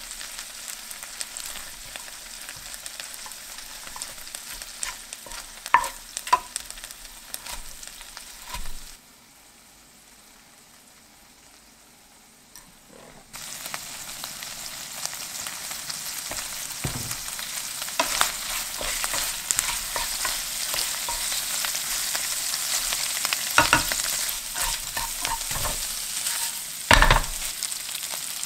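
Shrimp heads and shells sizzling in hot oil in a nonstick pan as they are fried to draw their flavour into the oil, stirred with a wooden spoon, with scattered clicks and a few louder knocks of the utensil against the pan. The sizzle drops away for a few seconds about nine seconds in, then comes back louder.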